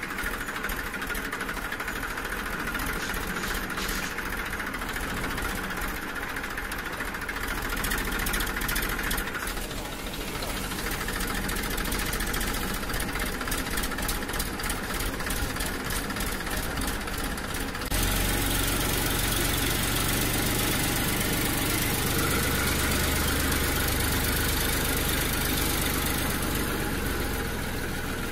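A motor running steadily, becoming abruptly louder and deeper about two-thirds of the way through.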